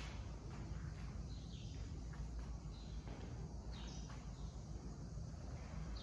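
Birds chirping now and then, a few short sharp chirps over a steady low outdoor rumble.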